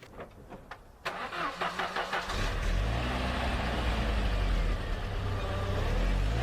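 Engine cranked by its starter for about a second and catching, then running steadily at idle.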